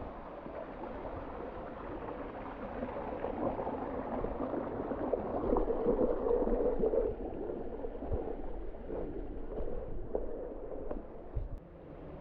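Waterfall water running and splashing over rock close by, loudest for a couple of seconds near the middle, then easing off.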